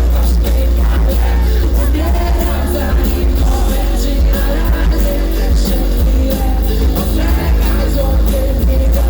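Live concert music played loud through an arena PA: a song with heavy, steady bass, a drum beat and a sung vocal line.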